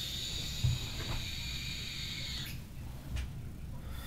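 Box mod vape with a SMOK Cloud Beast King sub-ohm tank firing through a long draw: a steady high hiss of the coil and the air pulled through the tank, which stops about two and a half seconds in. A single thump about half a second in.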